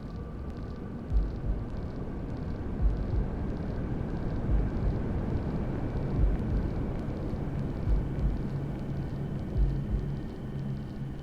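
Steady rushing white noise with a slow heartbeat laid over it: deep paired lub-dub thumps about every 1.7 seconds.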